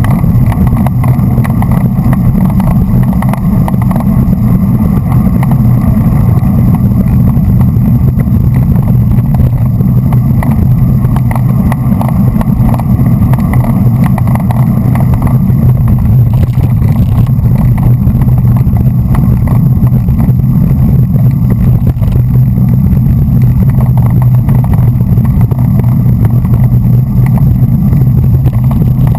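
Wind buffeting a bicycle-mounted action camera's microphone at racing speed: a loud, steady low rumble that does not let up.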